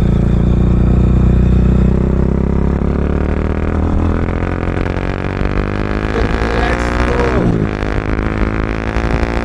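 Bajaj Dominar 400's single-cylinder engine through a loud Akrapovic full-system exhaust fitted with a dB killer, accelerating while riding. The pitch climbs steadily, drops sharply about seven and a half seconds in as the revs fall, then climbs again.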